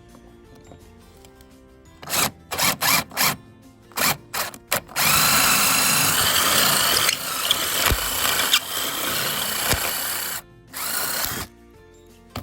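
Makita oscillating multi-tool at work on deck wood. It is switched on in several short bursts, then runs steadily for about five seconds with a change in tone partway through, stops briefly and runs once more.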